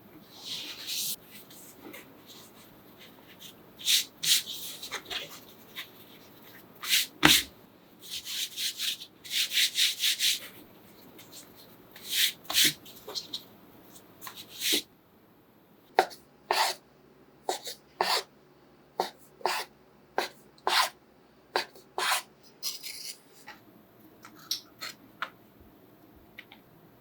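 Rubbing and scraping sounds of fresh pasta dough being worked by hand on a board, then a run of about a dozen sharp knocks at roughly two a second.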